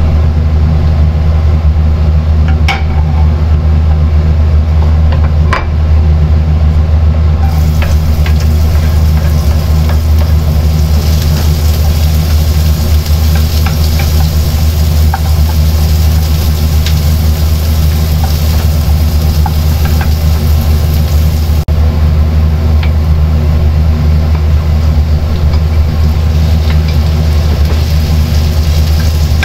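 Chopped onions and then minced meat frying in a non-stick pan, a steady sizzle that starts about eight seconds in, with a wooden spoon stirring and a couple of sharp knocks earlier on. Under it all runs a loud steady low hum.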